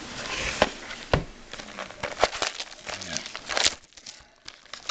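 Card box packaging being handled and opened: crinkling and rustling with several sharp clicks and snaps.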